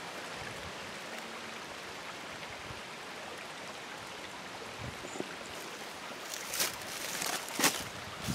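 Steady rush of a small spring-fed creek, with a few brief rustles and knocks in the last two seconds.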